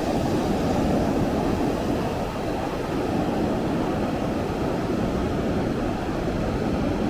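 Ocean surf washing in, a steady rumbling wash of noise.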